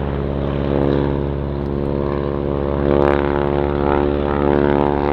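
Boeing Stearman N2S-4 Kaydet biplane in flight, its radial engine and propeller running with a steady, even hum.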